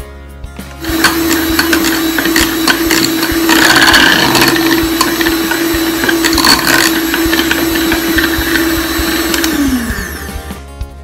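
Electric hand mixer running, its beaters whipping butter in a glass bowl: it starts about a second in, holds a steady whine, then falls in pitch and stops near the end. Background music plays underneath.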